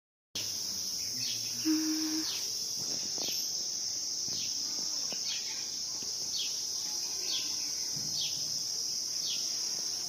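Steady, high-pitched chirring of crickets or other insects, with a bird repeating a short falling call about once a second, and a brief low hum near two seconds in.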